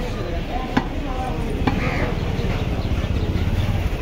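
A cleaver chopping beef on a wooden log block: two sharp chops about a second apart.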